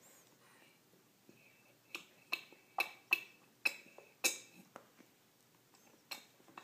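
Toddler eating straight from a plastic bowl held over her face, mouth and lips smacking inside it: a run of sharp clicks, about two a second, from about two seconds in to near five, with one more near the end.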